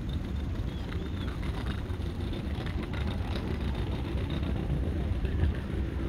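Steady low outdoor rumble, with a couple of faint high bird calls about a second in.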